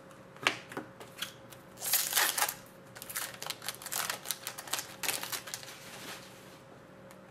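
Trading cards being handled and flipped through: a rustle about two seconds in, then a run of quick clicks and taps.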